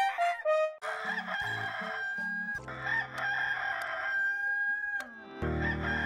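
Rooster crowing, the stock Hollywoodedge 'Rooster 2 Crow' sound effect, with one long drawn-out crow through the middle, over music.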